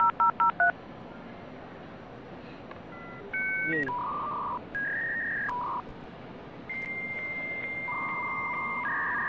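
Dial-up modem connection sound: the last quick keypad dialing beeps, then held tones and hissing data bands of the modem handshake, with a long steady high tone in the second half.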